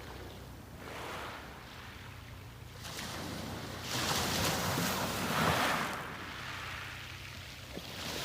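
Sea waves washing onto a beach. It is quieter for the first few seconds, then a wave surges in about four seconds in, peaks and draws back.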